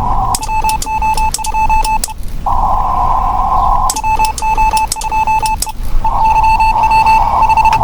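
Morse code (CW) on a ham radio transceiver: a single beep tone keyed in dots and dashes, with sharp clicks, alternating with stretches of band hiss from the receiver. Near the end a steady keyed CW signal comes through over the hiss.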